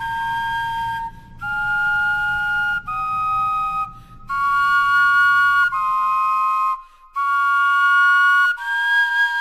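Vegetable flutes playing a slow melody in two-part harmony: about seven held notes with short breaks between them, each one a clear, steady, whistly tone.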